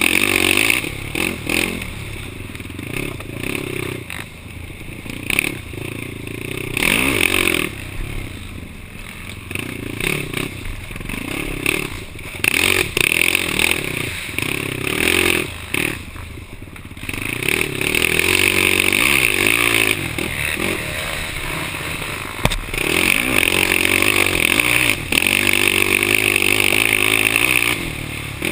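Yamaha YFZ450 quad's single-cylinder four-stroke engine revving up and falling back over and over under racing throttle, heard from a helmet camera, with knocks and rattles from the machine over rough ground.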